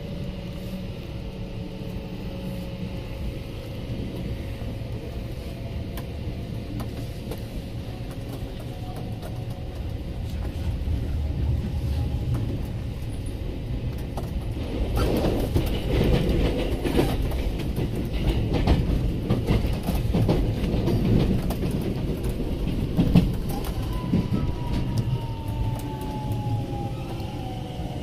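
Electric commuter train running, heard from inside the carriage. A steady rumble of wheels on rails grows louder about ten seconds in, with clattering over rail joints from about fifteen seconds. Near the end a falling motor whine comes in as the train slows.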